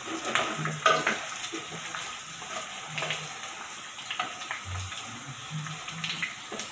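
Cubes of pork belly sizzling in their own rendered fat in a non-stick pan. A wooden spatula stirs them, with irregular light scrapes and knocks against the pan.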